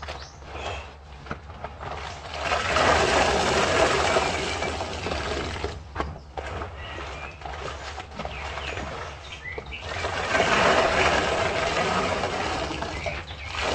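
Soapy sponge paste being squeezed and rinsed in water: two long stretches of splashing water, about two seconds in and again about ten seconds in. A steady low hum and faint birdsong sit underneath.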